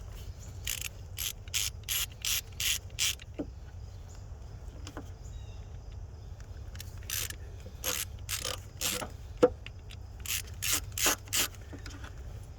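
Hand ratchet clicking in short back-and-forth strokes as screws are backed out: a quick run of about seven strokes, a pause, then a second run.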